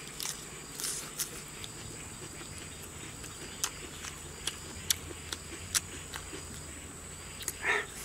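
Close-miked eating sounds: wet chewing with scattered sharp lip smacks and mouth clicks, and one louder, slightly longer mouth sound near the end. A faint steady high-pitched whine runs underneath.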